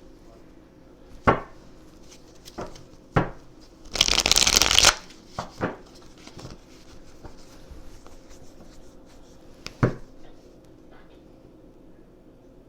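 A deck of tarot cards being handled and shuffled: a few sharp card snaps, then a dense riffle of about a second some four seconds in, then a few more snaps, one near the end.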